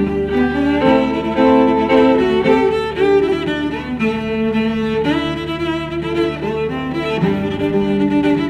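Background music, bowed strings playing a melody of held notes over a steady low note.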